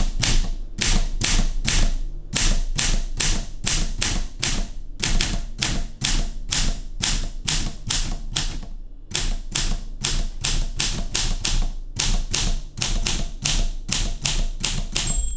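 Olympia SM3 manual typewriter being typed on, with a steady run of sharp key strikes at about four a second, pausing briefly twice.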